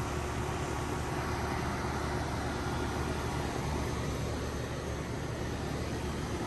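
Steady low mechanical hum with an even hiss over it, holding level throughout.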